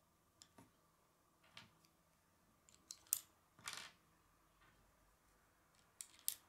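K'nex plastic rods and connectors clicking and snapping as they are pushed together by hand: faint scattered clicks, the loudest about three seconds in, and a brief rattle just before four seconds.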